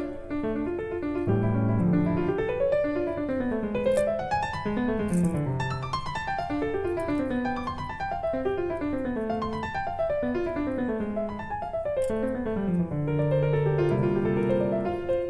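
Background piano music: quick runs of notes climbing and falling.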